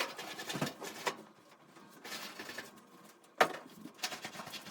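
A clothes dryer being pulled out from its spot against the wall, with irregular scraping and sliding noises and a sharp knock about three and a half seconds in.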